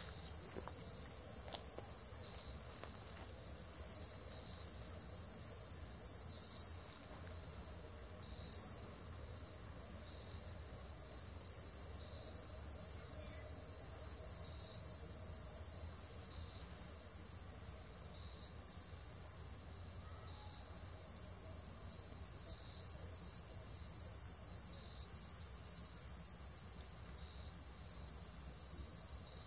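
Outdoor insect chorus: a steady high-pitched trill with a faster pulsing chirp beneath it. Three short, louder high buzzes break in, about six, eight and a half, and eleven and a half seconds in.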